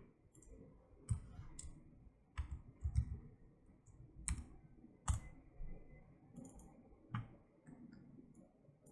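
Faint computer mouse clicks and keyboard keystrokes: about eight separate sharp clicks at irregular spacing.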